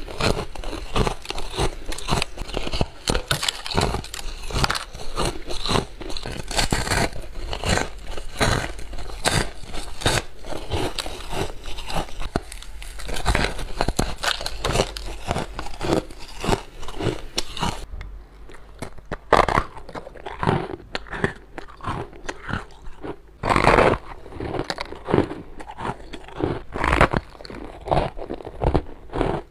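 Close-up crunching and chewing of hard freezer frost, bite after bite with a dense crackle of breaking ice crystals. Partway through, the crunches become sparser, with a few louder single bites.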